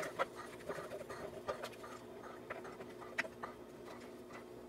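A few scattered light clicks and taps as electrical clip connectors are pushed onto fuel injectors in a bench injector tester, over a faint steady hum.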